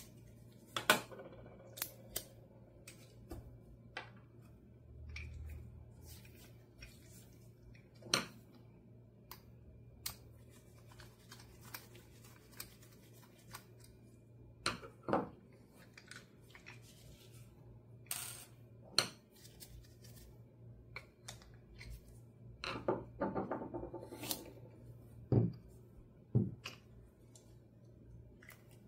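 Handling of a stainless-steel U-lock's small parts with a screwdriver: scattered light clicks, taps and scrapes of metal and plastic, with a few sharper knocks and a short run of rattling a little over three-quarters of the way through.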